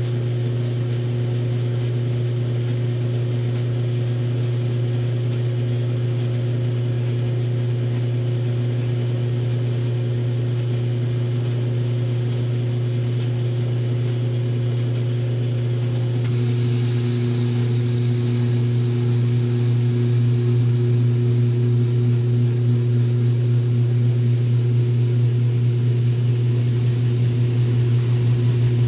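1962 RCA Whirlpool LJA70 washing machine running with a steady motor hum. About halfway through the sound changes and then grows gradually louder, with a fast pulsing.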